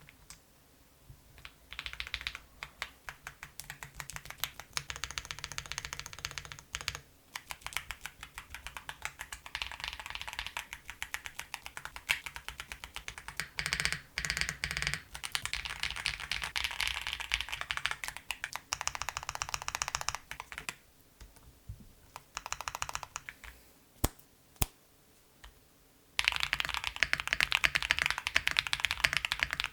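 Keys of a Tofu60 2.0 mechanical keyboard clacking as new keycaps are pressed onto the switches, in bursts of quick sharp clicks with short pauses between. The clicking is thickest and loudest near the end.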